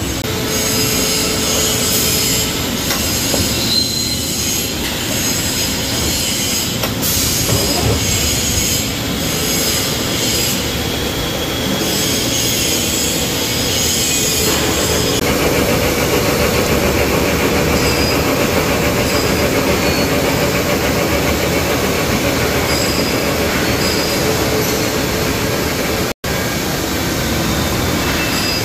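CNC machining centre milling and drilling a forged steel truck front axle I-beam under flood coolant: continuous metal-cutting noise with faint high ringing tones and coolant spraying. The sound changes about halfway through and drops out for an instant near the end.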